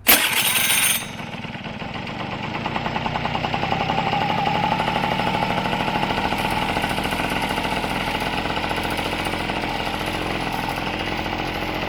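A 50cc scooter engine starting after a variator roller-weight replacement: a loud burst in the first second as it fires, then steady running at idle, rising a little a few seconds in, and running evenly.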